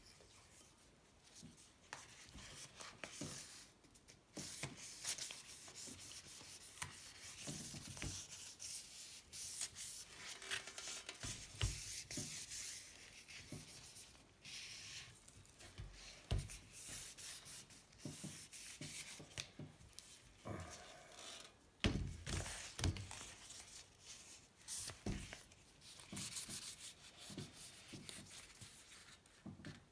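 Sandpaper rubbed by hand over the painted and rusted steel of a vintage bicycle frame, in irregular scratchy strokes, with a few light knocks along the way.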